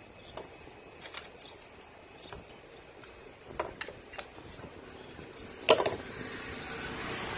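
Light rustling and scattered clicks of bundled insulated wires and cable ties being handled, then a sharp double clack a little before the end as a pair of yellow-handled pliers is set down on the workbench.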